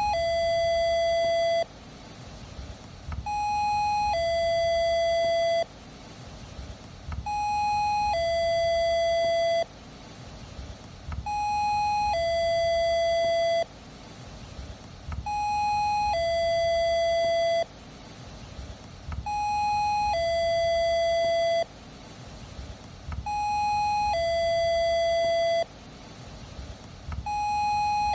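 Doorbell chime ringing ding-dong over and over: a short higher note, then a longer, louder lower note that cuts off sharply, repeating about every four seconds.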